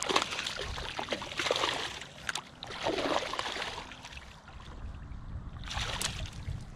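Water splashing and sloshing in uneven surges, with scattered clicks and knocks.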